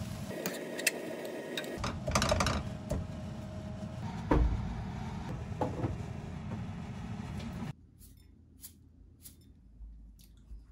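A metal spoon stirring and scraping seasoned shredded dried squid in a nonstick frying pan, with scattered clicks of the spoon against the pan over a steady low background. About eight seconds in the sound cuts abruptly to a much quieter room with a few faint clicks.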